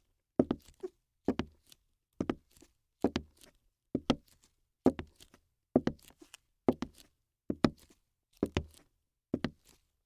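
Footsteps at a steady walking pace, about one step a second, each step a short double knock.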